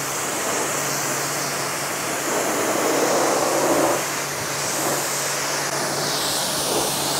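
Pressure washer spraying water onto a car door, rinsing off the pre-wash and the dirt it has lifted: a steady hiss of spray with a steady low hum underneath, louder for a second or so about halfway through.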